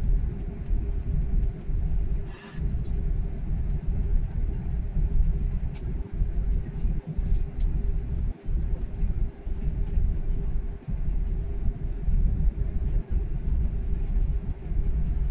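Jet airliner taxiing after landing, heard inside the cabin: a low rumble that rises and falls, with a steady hum over it.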